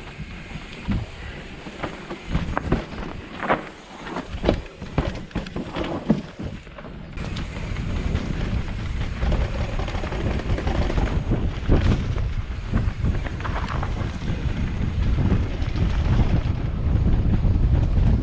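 Mountain bike riding over a rough trail, with sharp clicks and knocks from the bike. About seven seconds in, wind buffeting on the microphone takes over as a steady, growing rumble.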